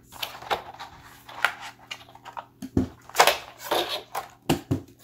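Cardboard box and clear plastic packaging of a keyboard cover being handled as the keyboard is pulled free: irregular rustles and scrapes with several sharp knocks, the loudest about three seconds in.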